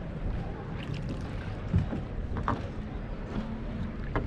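Gondola being rowed along a canal: a steady wash of water, with three short soft knocks about two seconds in, halfway through and near the end.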